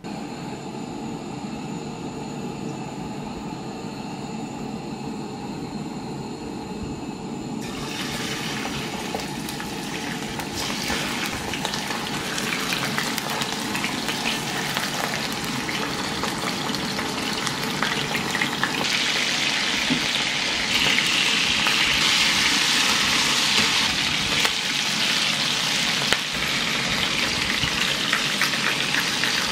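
Chicken thigh pieces frying in oil in a stainless steel pan, sizzling steadily. The sizzle is softer at first, turns sharply brighter and louder about eight seconds in, and is loudest in the last third.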